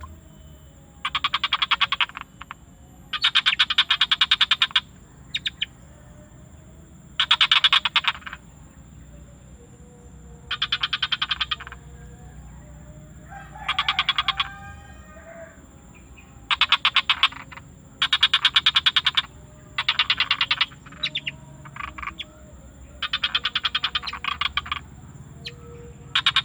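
Frogs calling: rapid pulsed trills, each a second or two long, repeating every two to three seconds, over a steady high whine. A lower call comes in about halfway through.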